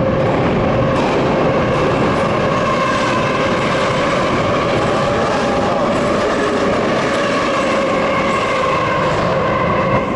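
Subway train passing at close range in the tunnel: a very loud, steady rumble of wheels on rails with steady whining tones over it, easing off at the very end.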